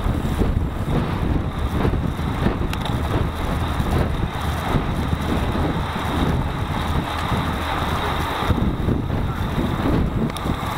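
Steady wind rushing over the microphone of a road bike's handlebar-mounted camera, with road rumble underneath, while riding at race speed in a pack of cyclists.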